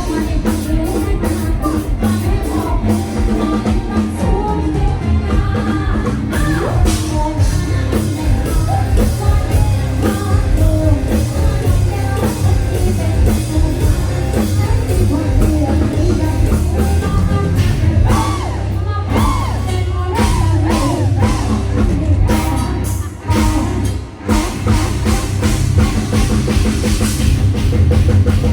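Loud live band music with a singer, driven by a drum kit, with brief drops in level near the end.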